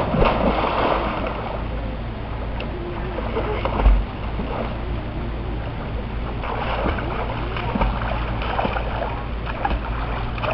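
Splash of a swimmer diving headfirst into a swimming pool, then the lighter splashing and sloshing of her swimming across it. A short low thump about four seconds in.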